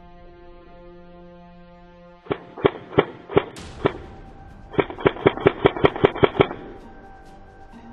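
Airsoft gun firing: about five single shots a third of a second apart, then after a short pause a fast string of about ten shots in under two seconds. A steady background music drone runs underneath.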